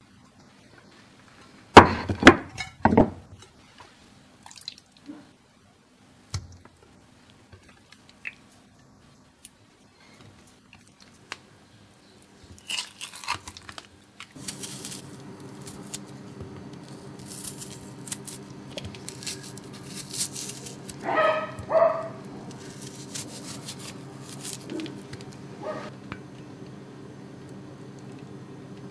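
Food-prep handling on a wooden worktop: a few sharp knocks as a glass baking dish is set down, then light squishy handling of raw meat cutlets and garlic in the dish, with scattered clicks and scrapes. About halfway through a steady low hum comes in and stays.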